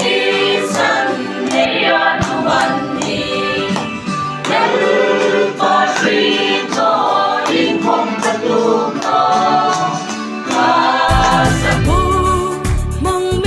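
A group of voices singing a hymn together, unaccompanied. About eleven seconds in, a music track with a deep bass line comes in.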